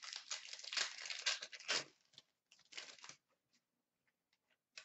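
Crinkling and rustling as a pack of hockey trading cards is handled. It is dense for about two seconds, then thins to a short patch and a few faint clicks.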